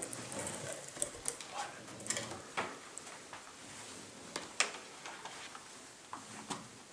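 Scattered sharp clicks and light knocks, unevenly spaced, of small objects being handled in a small room, the loudest about four and a half seconds in.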